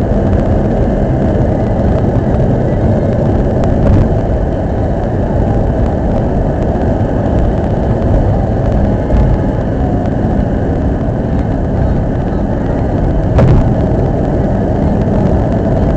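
Steady road and engine noise heard inside a car's cabin at expressway speed, with brief knocks about four seconds in and again about thirteen seconds in.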